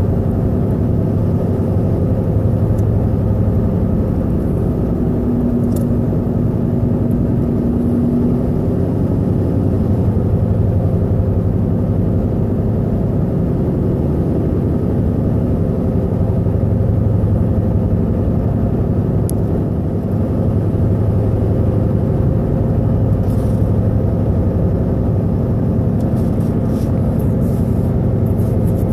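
Car engine running steadily with a loud, even drone, the noise its owner is asking about. A higher tone rises over it for a few seconds early on and then fades.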